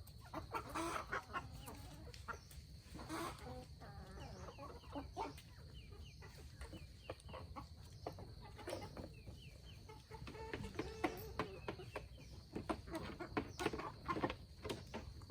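Free-range chickens clucking in short repeated calls, with many sharp taps and clicks scattered among them.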